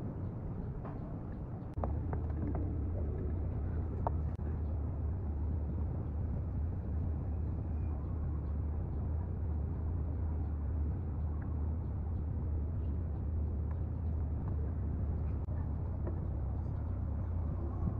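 A steady low motor hum starts about two seconds in and holds evenly, with a few faint clicks on top.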